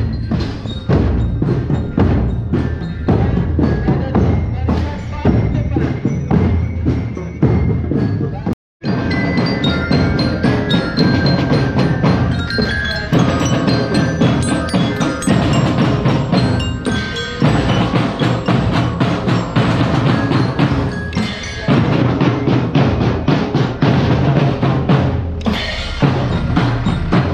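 Marching drum band playing on the move: snare and marching bass drums beat a fast, dense rhythm with a ringing, bell-like melody above them. The sound cuts out for an instant about nine seconds in, then the drumming carries on.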